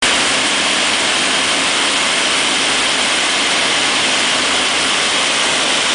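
KuangYung MRS-175 multi rip saw running and ripping a board lengthwise: a loud, steady machine noise with a bright hiss that does not let up.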